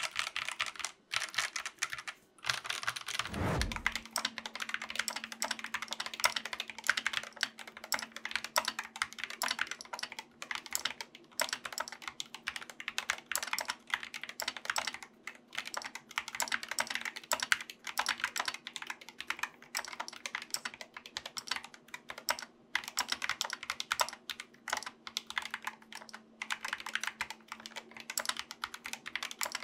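Fast typing on 60% mechanical keyboards with optical switches. For the first couple of seconds it is a GK61. After a short gap and a falling whoosh about three seconds in, it is an SK64S with optical red switches, clipped stabilisers, no case foam and PBT keycaps, over a faint steady hum.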